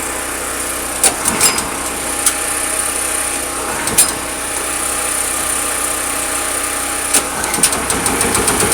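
Portable generator engine running steadily, with a few sharp clicks and knocks as the next small engine is readied. Right at the end a second small engine starts up and the sound gets louder.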